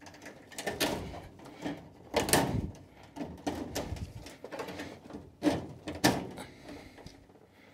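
Cutters snipping plastic cable retaining clips and cables being handled inside a lab incubator under scrap teardown. A handful of sharp clicks and knocks, loudest about two seconds in and again twice between five and six seconds.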